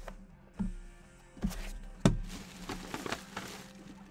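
A few short, dull thuds with some rustling between them as baseball card boxes and packs are handled and opened on a table.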